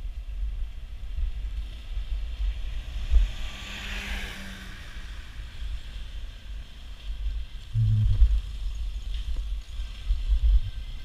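Wind buffeting the microphone and road rumble while riding a bicycle, a gusty low rumble throughout. A swell of hiss rises and fades about four seconds in, and a short low hum comes just before eight seconds.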